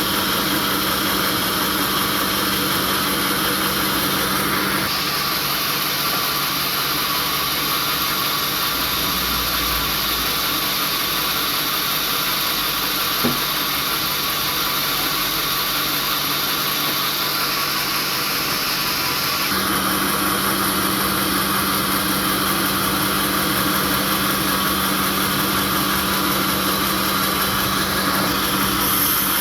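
Sawmill machinery running with a steady hum. Its sound changes abruptly about five seconds in and again near twenty seconds, with a single click about halfway through.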